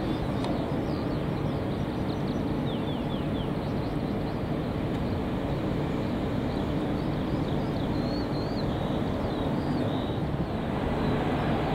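Steady rumble of jet aircraft engines across an airfield, even in level throughout, with faint short bird chirps at times.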